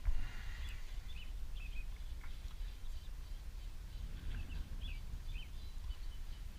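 Low wind rumble on the microphone, with short bird chirps scattered through it now and then.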